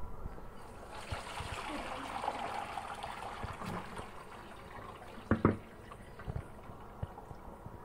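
Water running and trickling in a kitchen sink over vegetables in a colander for a few seconds, easing off about five seconds in. A couple of sharp knocks follow, with a few lighter clicks after them.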